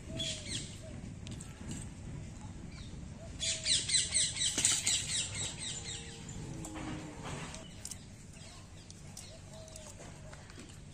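A small bird's rapid burst of high chirps, lasting about two seconds, starts a few seconds in. It is the loudest thing heard, over steady low outdoor noise with a few short, soft, lower calls.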